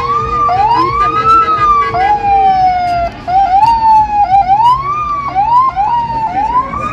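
A vehicle siren sweeping up and down over and over in short, uneven cycles, each rising quickly and then falling away, some cut off abruptly.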